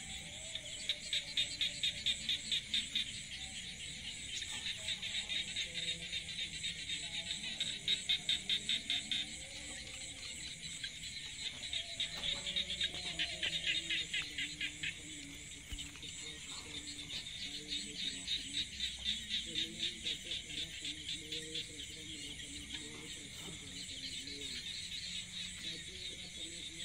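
Insects calling in rapid pulses, in bouts a few seconds long that start and stop several times.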